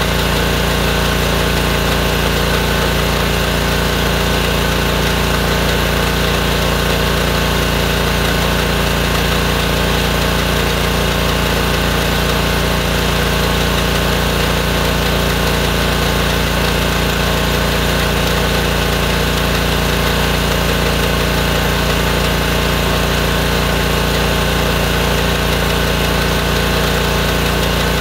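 Honda-powered gas pressure washer engine running steadily, driving the pump of a drain jetter while the jetter hose clears a buildup clog in a kitchen drain line.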